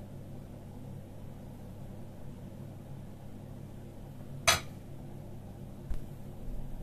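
A metal spoon clinks once, sharply, against a glass plate about halfway through, with a smaller knock a second later, over a steady low hum.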